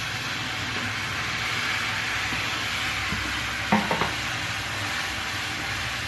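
Oil and fried spices sizzling steadily in a pan as pre-boiled, mashed taro leaves are added and stirred, with a few quick knocks of a utensil against the pan a little past halfway.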